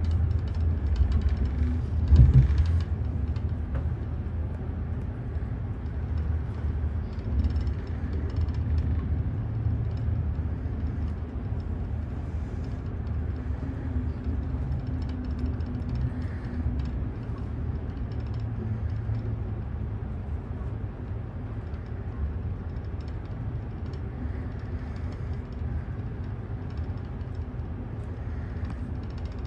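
Low, steady rumble of a passenger train carriage heard from inside, slowly fading as the train slows into a station, with one louder knock about two seconds in.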